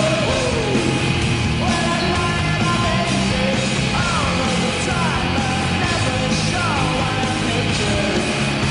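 Loud rock goal song with shouted vocals, the music an NHL arena plays after a goal.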